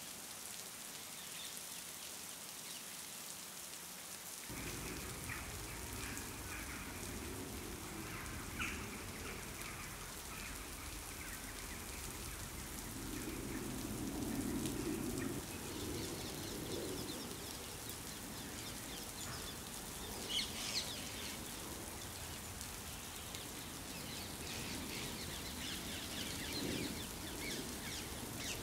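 Steady rain falling on foliage, an even hiss. A low rumble joins about four seconds in, and a few short bird calls come about two-thirds of the way through.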